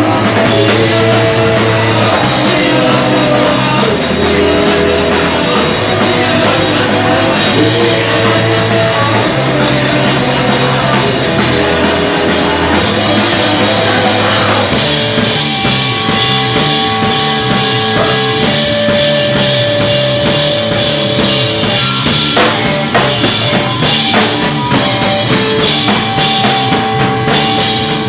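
Live rock band playing loud, with drum kit and a repeating low riff. About halfway through, the riff gives way to long held notes over heavy drumming.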